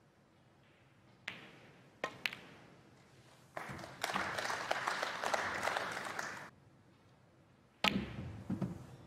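Snooker balls clicking: a cue striking the cue ball and balls knocking together. Then about three seconds of audience applause, and near the end another sharp cue-ball strike followed by lighter ball clicks.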